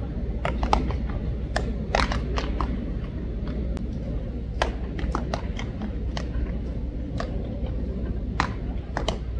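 Irregular sharp knocks of baseball practice, balls smacking into gloves and off bats, over a steady low rumble of open-air ambience.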